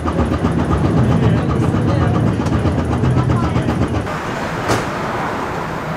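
Perley A. Thomas 900-series streetcar running along the rails, heard from inside the car, with passengers talking faintly. About four seconds in, the heavy low running sound drops away, leaving a lighter steady noise.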